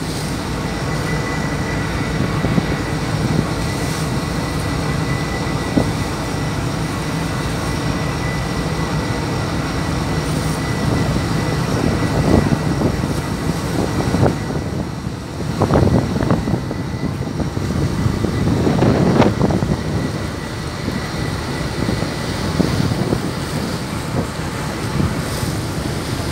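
A vessel's engines running steadily at sea, a low drone mixed with the rush of wind and choppy water along the hull, with a few louder surges of wash about halfway through.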